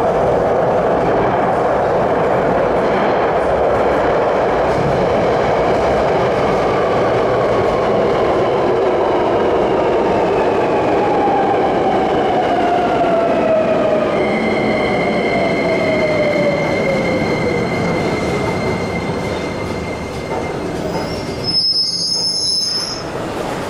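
Beijing Subway Line 10 train pulling into an underground station: loud rumble of steel wheels on rail with a whine that falls steadily in pitch as the train slows to a stop. A steady high whine holds near the end, and a short high-pitched sound follows just before the end.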